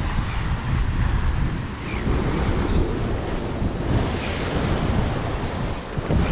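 Wind buffeting the camera microphone in gusts over the steady wash of sea surf against the rocks.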